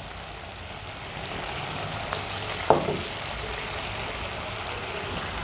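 Sauce of garlic, ghee, chicken stock and lemon juice bubbling and sizzling in a non-stick wok at a rolling simmer, growing a little louder after about a second. A single short click comes near the middle.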